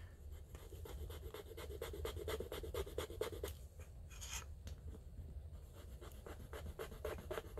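A silver earring rubbed back and forth on a black touchstone: a rapid, even run of faint scratching strokes, laying down a streak of metal for an acid test.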